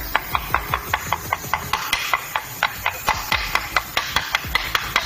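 A small hammer tapping a new oil seal into its housing on a floor grinder, in quick, light, even taps of about five a second.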